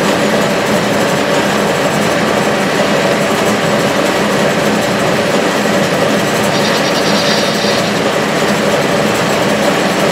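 Clausing 6930 metal lathe running steadily, its VFD-driven motor turning the spindle and the headstock and feed gearing giving a continuous mechanical running noise. A brief higher-pitched sound joins for about a second, roughly two-thirds of the way through.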